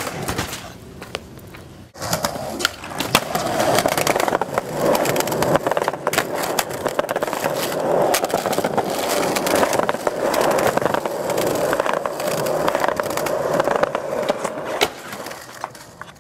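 Skateboard rolling, with a steady wheel rumble from about three seconds in that fades near the end, and repeated sharp clacks and knocks of the board on the ground and ramps.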